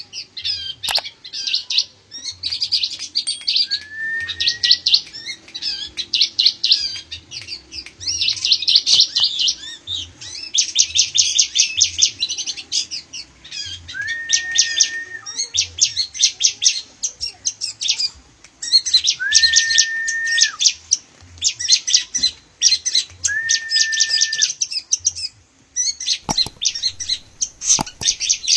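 Caged bar-winged prinia (ciblek) and long-tailed shrike (pentet) singing against each other: rapid, high chattering song in phrases of a second or two, repeated with short gaps, with a few long level whistled notes in between.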